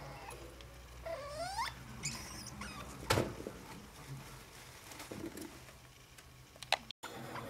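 Degus stirring in shredded paper bedding with a faint rustling. About a second in there is one squeaky degu call that dips and then sweeps up. A sharp click comes about three seconds in, and another near the end.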